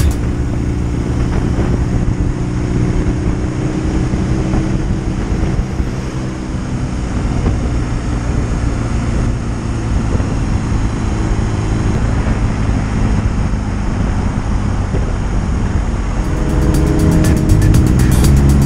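BMW R nineT's air/oil-cooled boxer-twin engine running at motorway cruising speed, mixed with rushing wind and road noise. The engine note becomes clearer and a little louder near the end.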